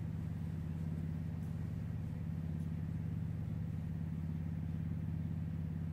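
A steady low engine hum that holds the same pitch and level throughout.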